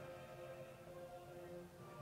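Faint background music of slow, held notes, with a new higher note coming in near the end.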